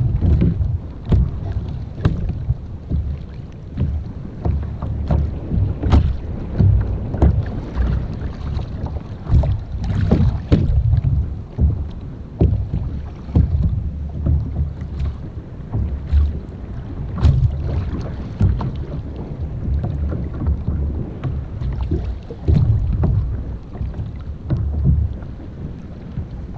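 Wind buffeting the microphone in an uneven low rumble, with sea water slapping against the hull of a sit-on-top kayak and a few light knocks scattered through.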